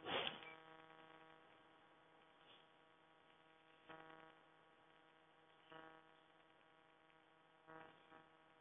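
Near silence with a faint steady electrical hum. There is a brief sound right at the start, and a few fainter short sounds about four, six and eight seconds in.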